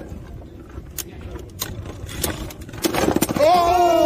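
Beyblade spinning tops clashing in a clear plastic stadium: sharp clicks of separate hits, then a quick rattle of rapid collisions about three seconds in. A person's drawn-out 'oh' follows near the end.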